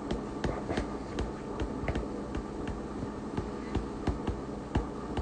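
Faint, fairly regular clicking, about three clicks a second, over a low steady hum.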